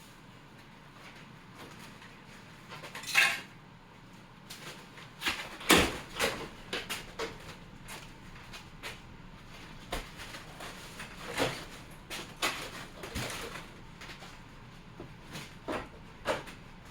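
Scattered knocks, clicks and clatters of a nailed box being worked apart, with two louder knocks about three and six seconds in.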